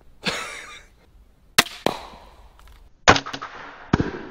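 EK Archery Cobra Adder crossbow with a 180 lb limb firing: two sharp snaps of the string releasing close together about a second and a half in. Near the end come two louder sharp pops with a ringing tail, soda cans bursting as the bolts hit them.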